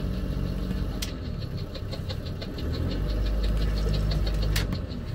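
Sailboat's auxiliary engine running at low revs during a docking under power, with a rapid regular ticking of about six a second. It grows louder and deeper about three seconds in, then drops back near the end; two sharp clicks come about a second in and near the end.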